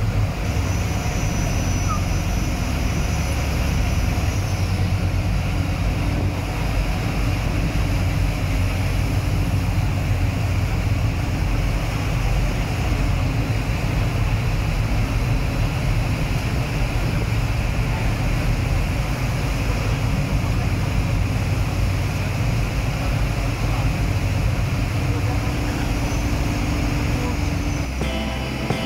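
Motorboat under way at speed: a steady engine drone mixed with wind rushing over the microphone and water noise from the hull.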